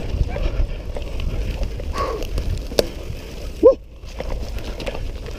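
Mountain bike riding down a rough dirt trail: a constant low rumble of wind and tyres on dirt, with rattling clicks and knocks from the bike over bumps. About three and a half seconds in comes one short, loud, pitched squeal that drops in pitch.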